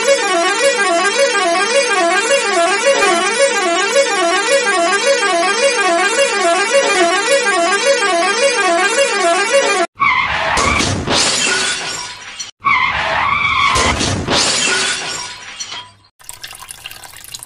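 A loud horn-like electronic warble, its pitch rising and falling evenly about three times a second, cuts off suddenly about ten seconds in. Two loud noisy stretches follow, then a quieter crackle near the end.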